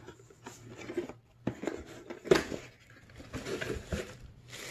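A cardboard shoebox being handled and its lid pulled off, with small scrapes and knocks and one sharper knock about two seconds in. Tissue paper rustles near the end.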